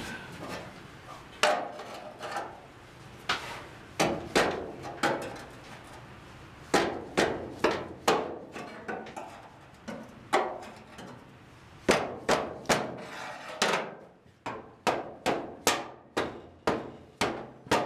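Hammer pounding on the new one-piece steel floor pan of a 1967 Ford Mustang convertible to seat it into place: irregular single blows, some ringing briefly, then a quicker even run of about two to three blows a second near the end.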